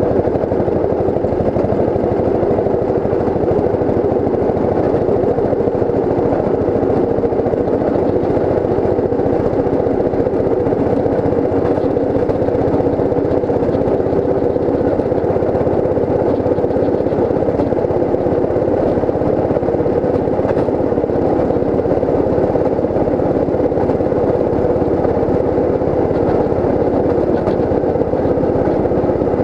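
Small engine of a railroad speeder (track motorcar) running steadily at cruising speed, with its wheels rolling along the rails. The sound is loud and even, with no change in engine speed.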